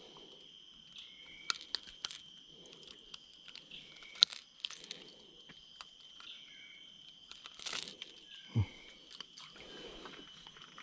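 Steady high insect drone under scattered sharp clicks, rustles and crunching handling noises, with one low thud about eight seconds in.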